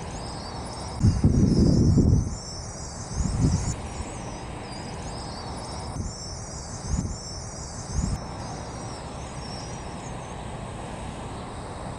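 A large flock of brown-headed cowbirds chattering, many high calls overlapping, thinning out near the end. Wind buffets the microphone about a second in and again in shorter gusts later.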